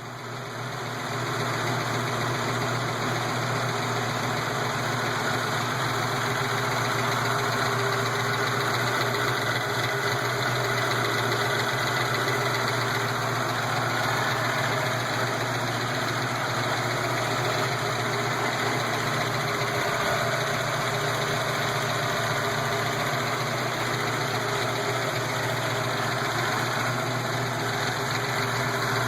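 A 331-cubic-inch V8 engine idling steadily with lifter noise from the valve train.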